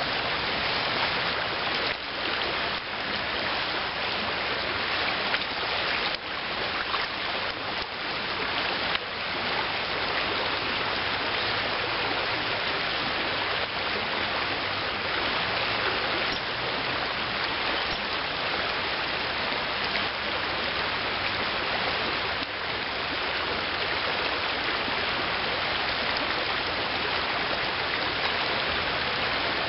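Shallow river riffle rushing steadily over gravel, an even hiss of flowing water, with a few faint knocks in roughly the first nine seconds.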